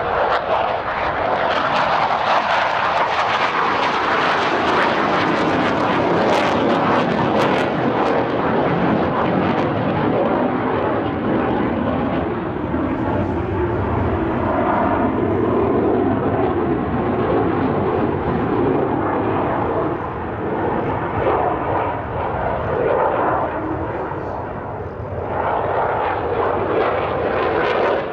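Jet engine noise from a Saab JAS 39C Gripen fighter flying a display. The engine is its single Volvo RM12 turbofan. The sound is a loud, continuous noise that swells and fades slightly as the aircraft manoeuvres, dips briefly near the end, then returns.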